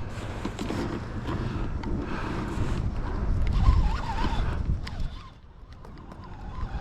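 Wind buffeting the microphone and water moving around a kayak on a river, a steady low rumble that eases off about five seconds in.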